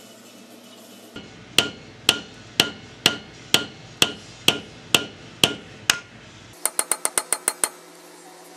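Hammer blows on a wooden dowel set against a sprocket on a Yamaha Raptor 700R engine, each with a short metallic ring. About ten firm, evenly spaced strikes come roughly two a second, then a quick run of about eight lighter taps.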